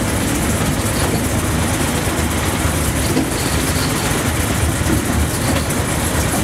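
Narrow-gauge train running along the line, heard from on board: a steady low engine drone mixed with the rumble of the wheels on the rails.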